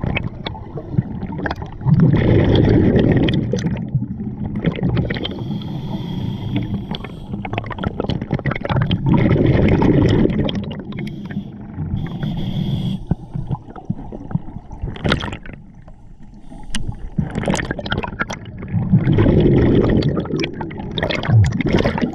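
A scuba diver breathing through a regulator underwater: three long rumbling bursts of exhaled bubbles, about 2, 9 and 19 seconds in, with quieter hissing and clicking between breaths.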